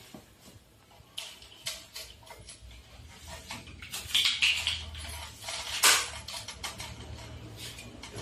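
Handling noises from a fat-bike front wheel being readied for fitting: scattered clicks and light metallic clinks with some rubbing, the sharpest clack about six seconds in.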